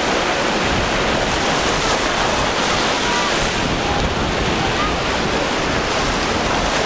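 Steady wash of surf and choppy waves, with wind rumbling on the microphone.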